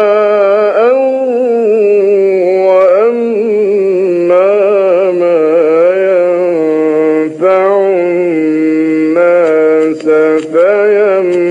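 A man reciting the Quran in the melodic mujawwad style, drawing out long held notes with wavering, ornamented turns of pitch. The voice pauses briefly a few times in the second half.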